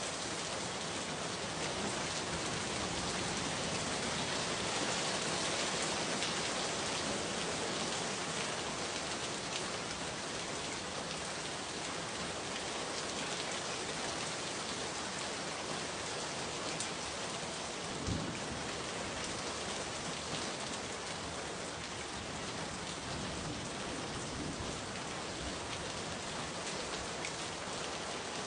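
Steady rain falling on a hard surface, an even dense patter that swells slightly a few seconds in, with one sharper drop or tap about 18 seconds in.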